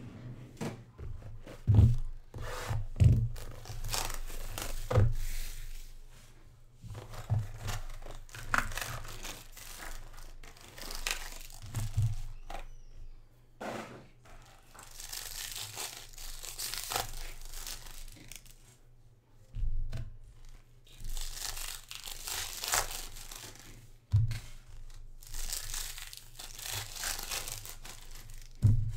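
Foil trading card packs being torn open and the wrappers crinkled by hand, in noisy bursts a few seconds long. Short thumps come now and then as packs are handled against the table.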